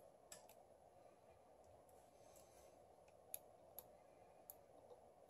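Near silence with a handful of faint, sharp clicks: fingertips and tweezers tapping on a Galaxy S7 edge's metal midframe while adhesive strips are worked along its edge.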